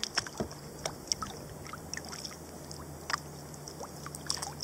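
Kayak paddle strokes on calm water: soft dips and drips of water falling off the paddle blades in scattered small splashes, over a faint steady low hum.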